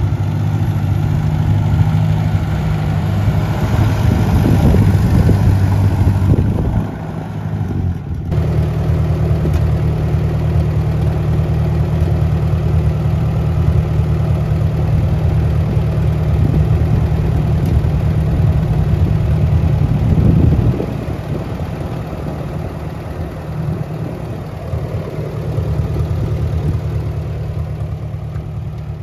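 Ford 960 Powermaster tractor's four-cylinder engine running steadily at low speed, first as it drives and then as it sits. The sound dips briefly about seven seconds in and is quieter from about twenty seconds in.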